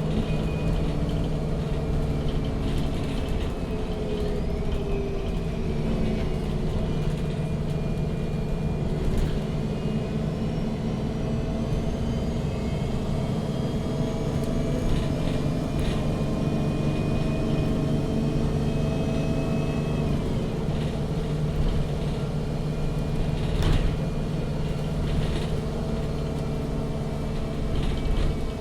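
Interior sound of a MAN NG 313 CNG articulated city bus driving: its natural-gas engine and drivetrain running with a steady rumble and a whine that rises and falls in pitch a couple of times, and a few short knocks or rattles from the body.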